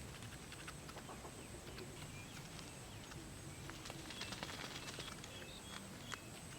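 Faint outdoor ambience: scattered short bird chirps and many small sharp clicks over a low rumble, with a steady thin high-pitched tone.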